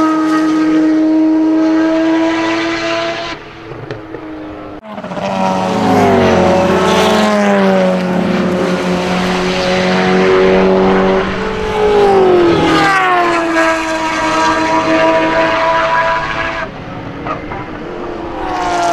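Several racing car engines at high revs through a fast corner, their pitch dropping as they come off the throttle and then climbing as they accelerate out again. The sound changes abruptly twice, about five seconds in and near the end.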